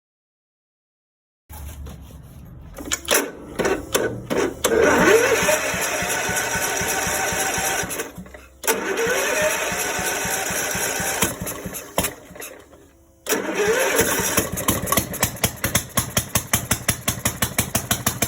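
Riding lawnmower's small gasoline engine running in three stretches with short breaks between them; each stretch begins with a rising sweep in pitch, and the last ends in a fast, even pulsing.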